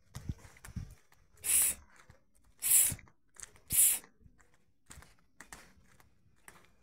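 Walking in flip-flops, their soles slapping softly on the pavement now and then. Near the middle come three loud, short rushes of hissing noise about a second apart.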